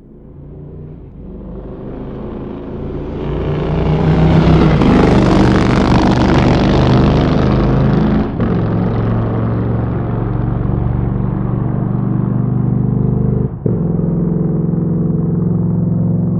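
A motorcycle engine that swells in from silence over the first few seconds, then runs steadily loud. Its level drops briefly twice, about eight seconds in and again near thirteen and a half seconds.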